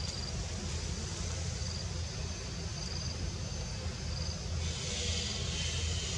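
Forest insects buzzing and chirping high up, with a short high chirp repeating about once a second over a steady low rumble; the buzzing grows louder about three-quarters of the way through.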